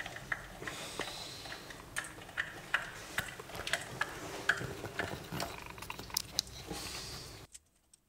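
Hand screwdriver driving small self-tapping screws into the plastic posts of a speaker crossover's terminal plate: irregular small clicks and squeaks.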